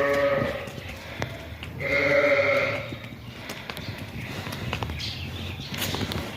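Sheep bleating twice: a short call at the start and a louder, longer one about two seconds in, with scattered light clicks in between.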